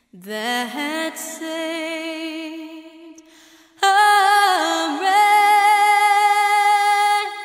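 Soundtrack of a solo singing voice with little or no accompaniment, holding long notes with vibrato; a louder phrase comes in about four seconds in.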